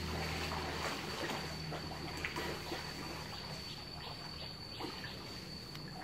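Pool water splashing and lapping softly from a swimmer's strokes, with a thin steady high-pitched tone in the background.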